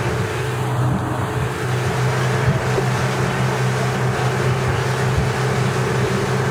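Speedboat engine running steadily at speed, a low drone, over the rush of water churning past the hull.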